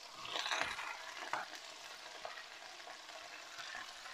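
Blanched small-broccoli greens dropped by hand into a hot frying pan with a sausage, hissing as they land about half a second in. The pan then settles to a faint steady sizzle.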